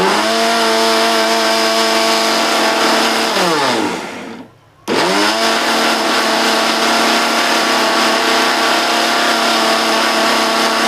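Electric mixer grinder grinding dry ginger and turmeric into powder in two bursts. The motor runs at a steady high speed, winds down with a falling pitch after about three and a half seconds, stops briefly, then starts again about five seconds in.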